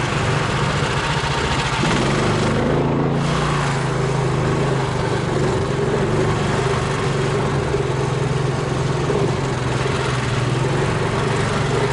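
Engine of a homemade low-pressure-tyre all-terrain vehicle (karakat) running steadily under way, with a slight shift in its note about two seconds in.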